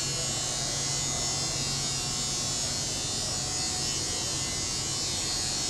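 Steady factory background: a low electrical hum under an even, airy hiss, with no distinct events.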